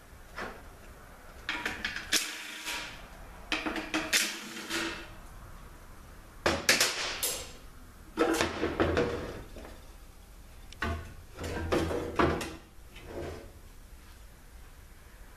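Metal hand tools and transmission parts clanking and scraping in irregular bursts, some strikes ringing briefly.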